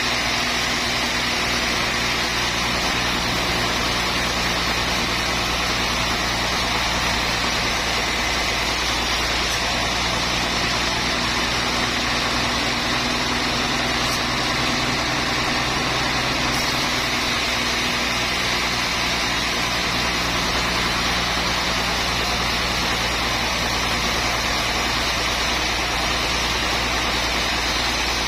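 Sawmill machinery running steadily: a constant engine-like hum with a broad hiss over it, unchanging throughout.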